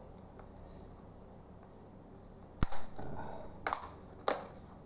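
Sharp plastic snaps, three of them in the second half, as the Toshiba Satellite C640's plastic keyboard trim strip is pried loose from its clips.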